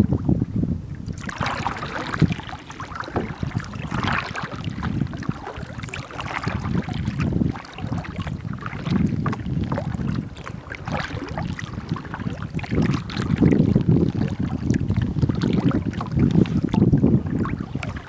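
Water lapping and splashing against a plastic kayak hull on a choppy pond, with wind rumbling on the microphone throughout. The splashing starts about a second in.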